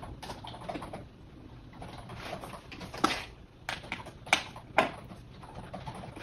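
Computer keyboard typing in the background: a steady patter of small key clicks, with three louder, sharper clicks or knocks about three, four and a third, and four and three-quarter seconds in.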